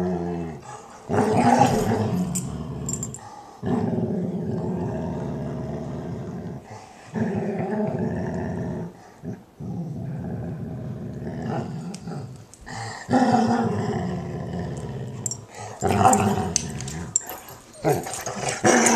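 German Shorthaired Pointer making long, low, drawn-out growly vocalizations one after another, with short breaks between them: her happy noises of contentment while a Weimaraner licks and cleans her ear.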